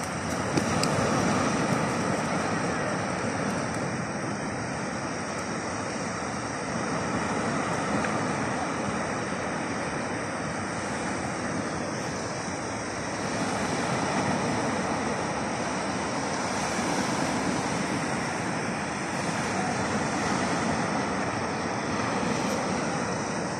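Surf breaking on a sandy beach: a steady rushing noise that swells and eases every few seconds.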